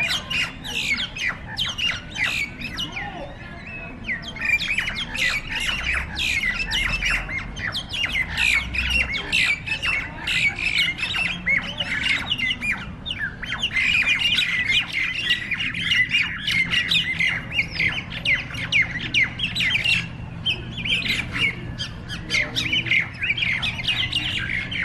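Hill mynas squawking in dense, rapid runs of harsh calls, many a second, with a few brief lulls: the racket of mynas fighting.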